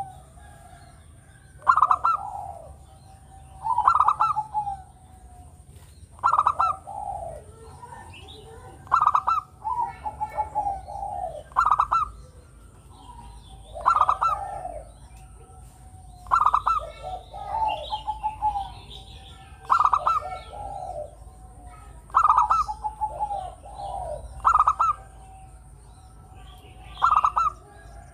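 Zebra dove (perkutut) cooing in its repeated rolling song. Each phrase opens with a few sharp, higher notes and tumbles into lower trilled coos, and the phrase comes again every two to three seconds.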